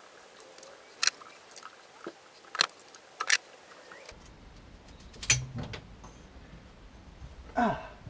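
Scattered sharp clicks and knocks of metal parts being handled and worked into a car's transmission tunnel by hand: a gearbox mounting plate and its bolts being fiddled into place. A faint low hum starts about four seconds in.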